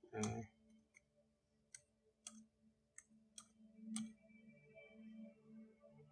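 Computer keyboard keystrokes: a handful of separate, unhurried clicks spread through the pause, over a faint steady hum, with a brief low sound at the very start.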